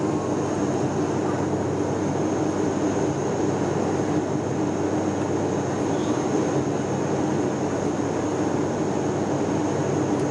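Steady passenger-aircraft cabin noise during the climb after takeoff: engine drone and rushing air, with a low hum and a thin high whine held on top.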